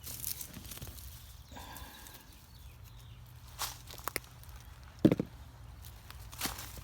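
Digging through potato soil in a plastic grow tote: soft scrapes and a few sharp knocks, the loudest about five seconds in.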